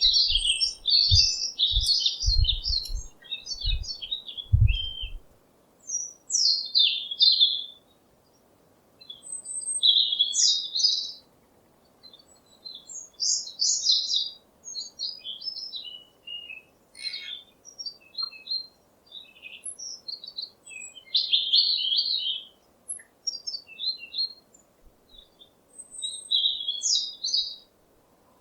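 Small songbirds chirping and twittering in quick bursts of short notes and trills, with brief pauses between phrases. A few low thumps sound during the first five seconds.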